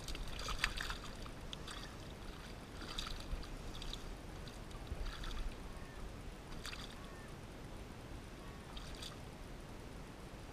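Water splashing as a hooked golden perch (yellowbelly) is held by the mouth in shallow water at the bank and kicks: a series of short, irregular splashes, the busiest in the first second.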